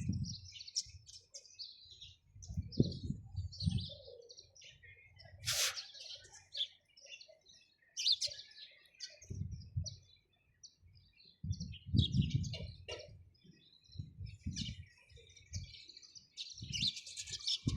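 Sparrows chirping: many quick, short chirps overlapping one another. Short bursts of low rumble come every few seconds and are louder than the chirps.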